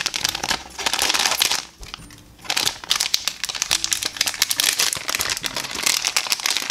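Crinkly plastic blind-bag packaging rustling and crackling as it is handled and pulled open, with a short lull about two seconds in.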